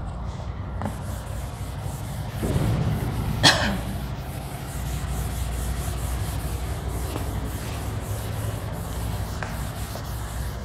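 A board duster rubbing back and forth across a chalkboard, wiping off chalk, over a low steady hum. One sharp knock comes about three and a half seconds in.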